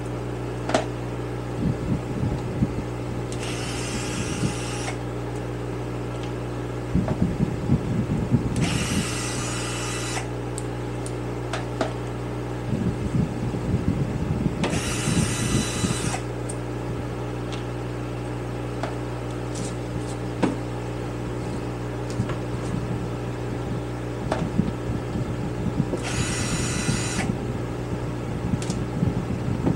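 Cordless drill-driver running in short bursts of a second or two, several times, backing out the screws to open up a Kawasaki KZ440 carburetor. Between the bursts there is clatter of the metal carb parts being handled, over a steady hum.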